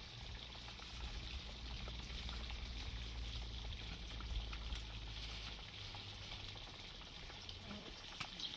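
Pot of liquid simmering over a wood fire, a faint steady bubbling hiss with a few small crackles.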